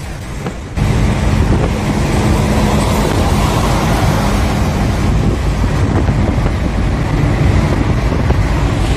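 A car driving at speed: steady rushing road and wind noise over a low engine and tyre hum, stepping louder about a second in.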